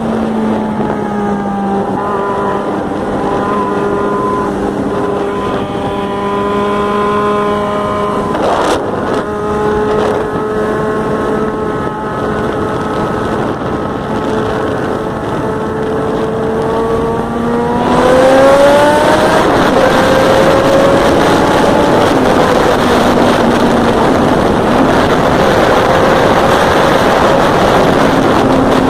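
Yamaha XJ6N motorcycle's 600 cc inline-four engine running at a steady held rev. About two-thirds of the way through it revs up and holds at a higher, louder and rougher note. There is a single brief click a little under a third of the way in.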